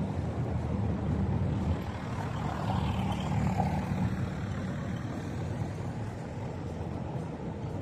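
Road traffic on a city street: a steady low rumble of cars driving past, with one vehicle passing a little louder around three seconds in.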